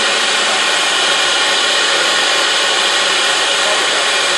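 Four-spindle CNC router spindle cutting a groove through a wood panel: a steady, loud hiss of cutting with a thin high whine running through it.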